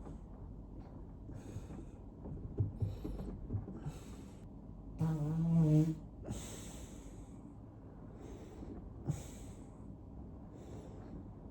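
A person breathing in and out again and again while letting gas out of an air-inflated belly. About five seconds in there is a drawn-out, pitched release of gas lasting about a second, the loudest sound, with a few short low pops of gas around the three-second mark.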